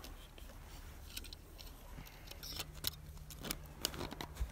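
Thin wire being wrapped and pulled tight around a split wooden log, giving faint scattered metallic clicks and scrapes that come more often in the second half.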